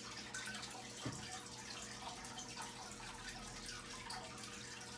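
Quiet room tone: a steady faint hiss with a few light clicks, the clearest about a second in.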